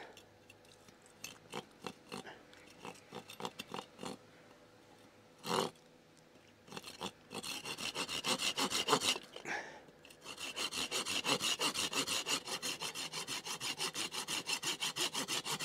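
Hand saw making stop cuts across a wooden kuksa blank. A few scattered knocks and taps come first; from about seven seconds in there are quick, even rasping saw strokes, about four a second, with a short pause near ten seconds.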